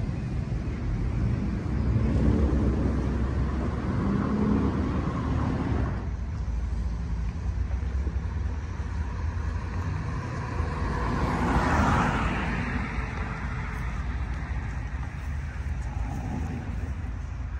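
Road traffic: vehicles passing on a street over a steady low rumble, with one vehicle swelling and fading about twelve seconds in.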